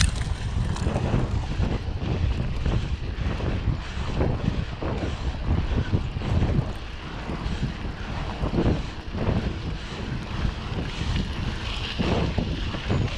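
Wind rumbling on the microphone of a camera riding on a mountain bike, with uneven knocks and rattles from the bike over rough trail ground.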